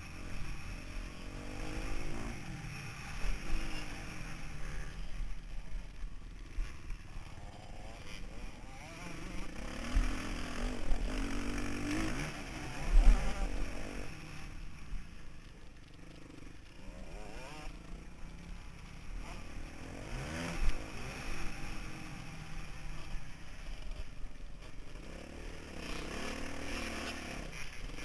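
Motocross bike engine heard from a camera mounted on the bike, revving up and falling back over and over as the rider accelerates, shifts and backs off through the track, with a low rumble of wind on the microphone. Two sharp thumps stand out, the louder about 13 seconds in and another about 21 seconds in.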